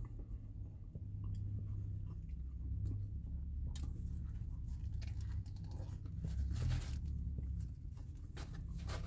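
A person biting into and chewing a grilled chicken pita wrap, with a few short sharp crinkles from its paper wrapper, over a low steady hum.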